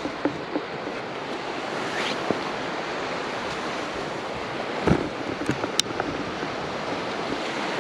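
Sea waves washing steadily onto the beach on the incoming tide, with a few faint knocks and clicks, the loudest about five seconds in.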